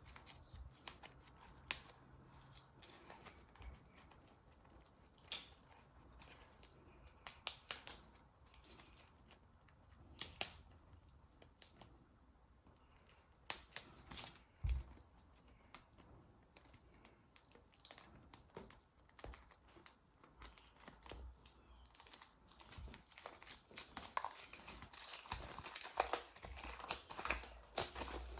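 Packaging being handled and opened: scattered tearing, crinkling and small clicks, growing busier and louder over the last several seconds.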